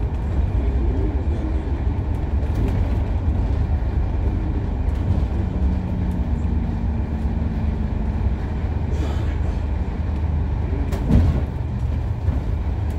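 Interior of a New Routemaster hybrid double-decker bus under way: a steady low rumble of the drivetrain and road. A low hum holds for a few seconds in the middle, and a single thump comes about eleven seconds in.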